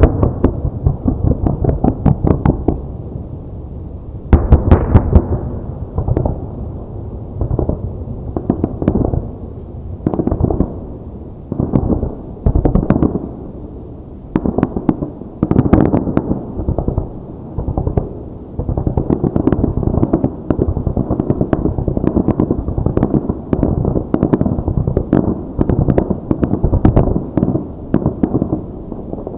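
Aerial fireworks display: volleys of shells bursting in rapid strings of sharp cracks and deep booms, almost without pause, with especially heavy salvos about four seconds in and again about halfway through.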